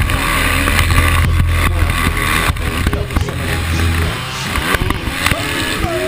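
Motocross bike engine running hard under a helmet camera, its revs rising and falling, with heavy wind rush.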